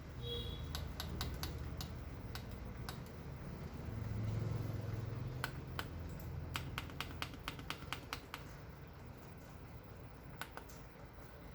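A series of sharp, irregular clicks, several a second, in two runs with a pause between, over a low steady hum; a short high beep sounds right at the start.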